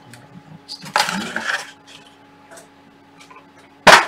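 Handling noise about a second in, then a single sharp clack near the end as an aluminium frame extrusion is set down on the table.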